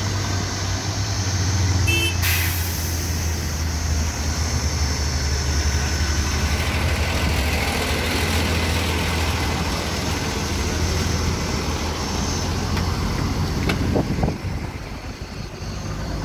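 Steady low hum of a heavy vehicle's engine running nearby, with road traffic rushing past. The engine hum fades out about three-quarters of the way through.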